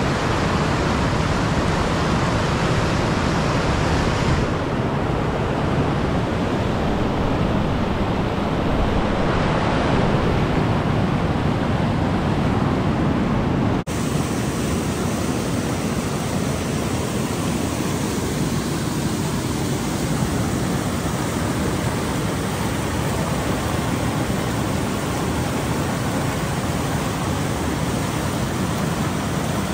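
Petrohué River rapids rushing: a loud, steady noise of white water, with a brief drop in level about halfway through.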